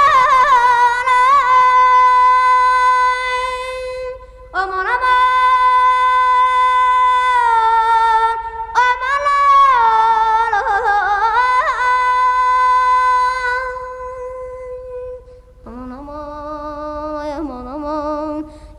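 Azerbaijani mugham music: a single melodic line of long held notes with quick trills and ornaments, broken by short pauses between phrases, moving down to a lower register for the last few seconds.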